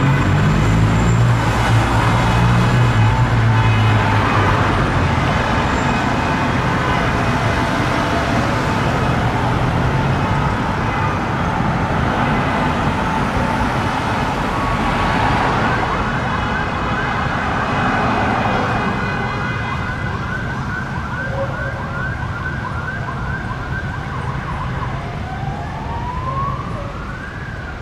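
Police vehicle sirens sounding over street traffic, with a heavy engine running low in the first few seconds. Partway through the siren switches to a fast yelp, and near the end a slow wail rises and falls.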